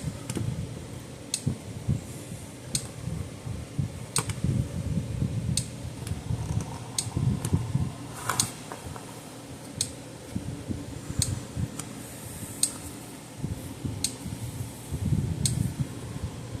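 Gallagher M150 electric fence energizer ticking with each pulse, a sharp click about every second and a half, over low rustling and handling noise from sealant being applied to its case.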